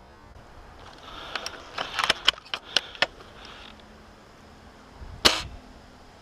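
A spring-powered airsoft sniper rifle (an upgraded L96) firing a single loud shot about five seconds in, after a quick run of sharp clicks and snaps.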